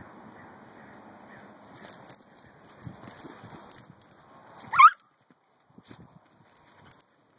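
A dog and a gopher scuffling on dry dirt, with light scuffs and ticks. One short, high animal squeal, which sweeps up and down, comes nearly five seconds in and is the loudest sound.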